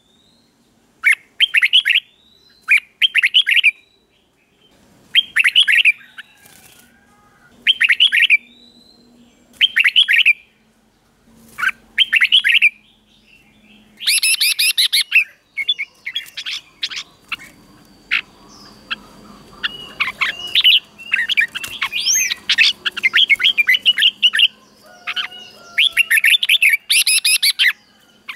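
Red-whiskered bulbul singing: short, bubbly whistled phrases with about a second's pause between them, then from about halfway a denser, nearly unbroken run of phrases.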